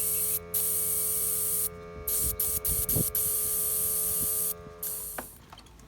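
Compressed air hissing into a dirt bike's rear tire through an air chuck, in spurts with short breaks, over a steady hum; the tire is being inflated because it had gone soft. Hiss and hum stop shortly before the end.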